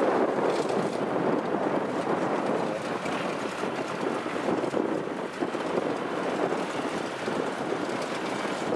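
Kubota DC-70 rice combine harvester's diesel engine and threshing machinery running steadily under load while cutting rice, a dense, even drone.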